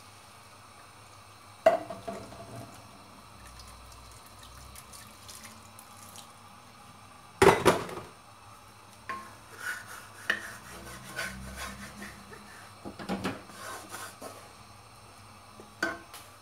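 Water being poured into a wok of vegetable curry, with two sharp knocks (the second, about halfway, the loudest) and lighter knocks and clatter through the second half.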